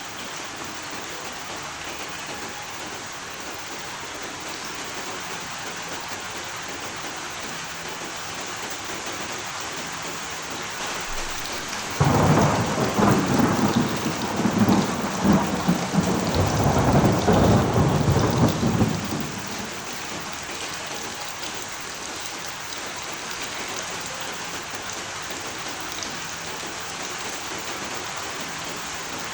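Steady heavy rain hissing, with a loud thunderclap cracking in suddenly about twelve seconds in and rumbling for about seven seconds before dying away to rain alone.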